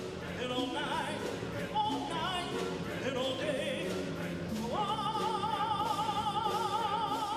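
A man singing a solo vocal line in a full, operatic style. A little under five seconds in he slides up to a high note and holds it with a wide vibrato.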